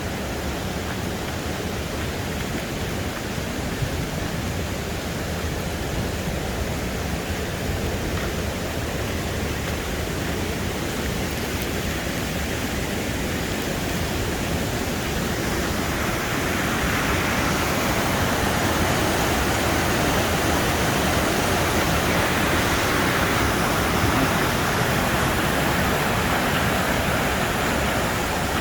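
Rushing water of a waterfall running high after rain: a steady roar that grows louder about halfway through.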